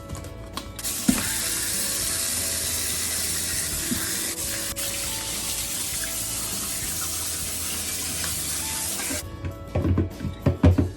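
Kitchen tap running into the sink while raw chicken wings are rinsed under it: a steady hiss of water that comes on about a second in and shuts off about two seconds before the end. A few dull knocks follow near the end.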